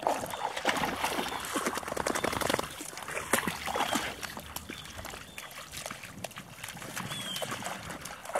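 Water splashing and sloshing irregularly as puppies wade and paddle through shallow pond water.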